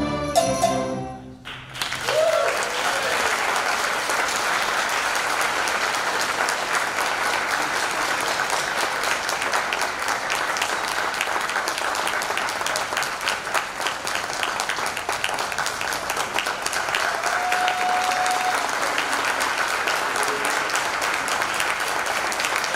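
A string orchestra of violins, cellos and double basses sounds its final chord, which stops about a second and a half in, followed by steady audience applause that continues to the end.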